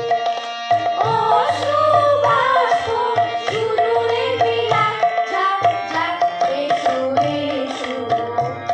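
A children's choir sings a melody in unison to tabla accompaniment, with the drum strokes keeping a steady beat under a held sustained tone.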